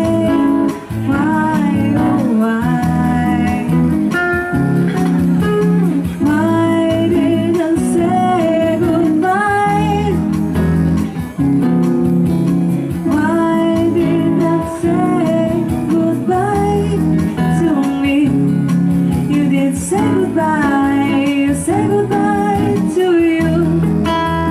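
Band music: a song with singing over guitar and a steady bass line.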